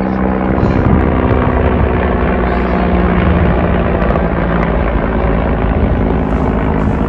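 Large transport helicopter flying overhead, its rotor and turbine noise loud and steady.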